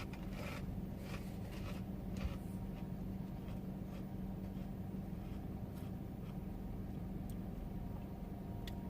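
Faint, scattered crunches and rustles of someone eating chips, over a steady low hum in a car's cabin.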